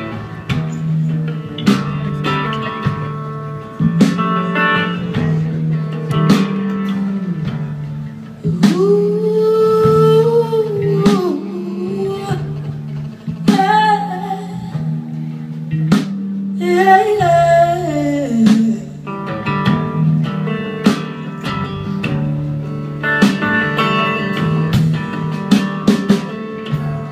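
Live band playing a song: electric guitars, drum kit and keyboard, with a woman's voice singing a few phrases in the middle stretch over sustained instrumental chords.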